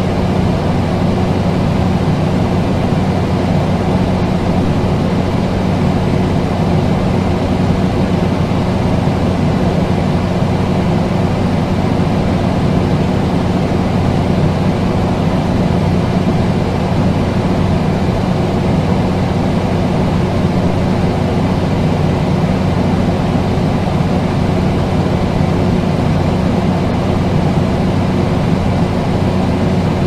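Air conditioner running steadily: an even rush of air over a constant low hum, with no change in speed or pitch.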